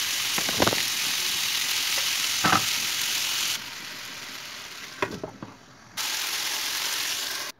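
Sliced tomatoes, peppers and potatoes frying in butter in a nonstick pan, a steady sizzle, with a wooden spoon knocking against the pan three times. The sizzle drops off suddenly a little past halfway and comes back just as loud about six seconds in.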